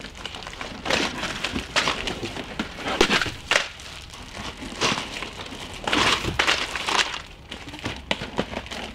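Plastic wrapping crinkling and rustling in irregular surges as bundles of plastic-wrapped arrow shafts are handled and lifted out of a cardboard box.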